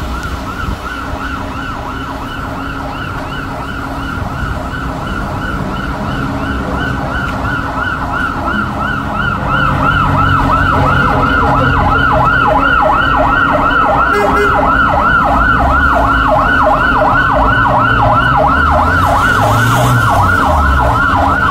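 Emergency vehicle siren in a fast rising-and-falling yelp, about four cycles a second, over a low engine rumble. It grows louder about nine or ten seconds in.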